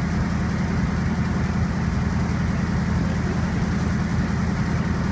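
Fire truck's engine running steadily with a low, even drone, keeping the extended aerial ladder powered.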